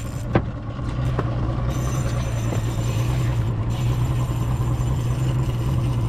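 Boat's outboard motor running with a steady low hum, growing louder about a second in and then holding. A sharp click sounds near the start.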